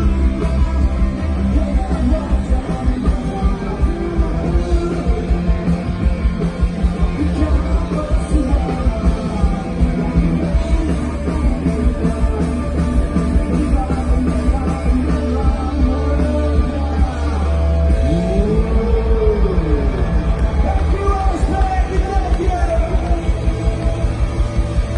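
A rock band playing live and loud, with electric guitars over a steady drum beat and singing.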